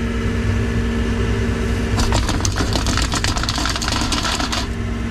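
Steady drone of the blasting rig's air compressor engine running, with two held tones over a low rumble. From about two seconds in, a dense crackling patter of fine crushed glass abrasive pouring through the mesh sieve into the blast pot lasts a little over two seconds.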